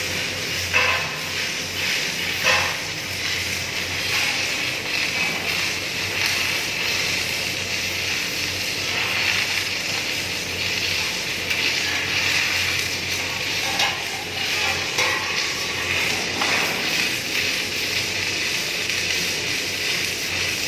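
Submerged arc welding running: a steady hiss from the arc burning under the flux over a low electrical hum, with a few short clicks.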